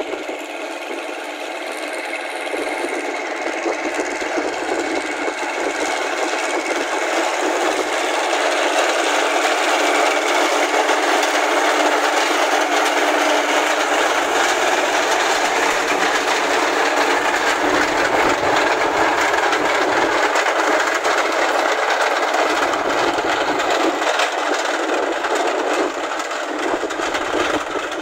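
A Massey Ferguson tractor on steel half-tracks driving along, its engine running under a dense clanking of the steel track plates. The sound grows louder over the first several seconds and then holds steady.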